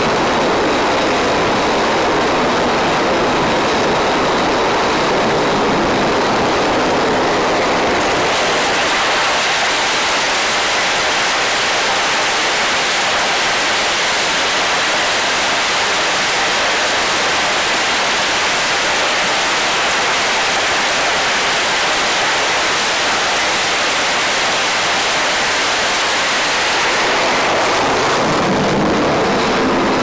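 Single jet engine of an F-35C on the carrier's catapult, run up to full power: a loud, steady rushing noise that builds about eight seconds in and holds. Near the end it falls away as the jet is launched and leaves.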